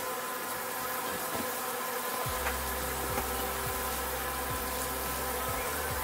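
Steaks sizzling steadily in butter in a cast-iron skillet on a gas burner, over a steady buzzing hum; a low hum joins about two seconds in.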